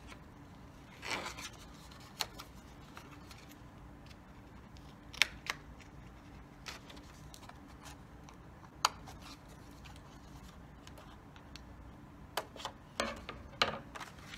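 Scissors snipping through a paper card: short, sharp snips and clicks with pauses between, several close together near the end, over a faint steady room hum.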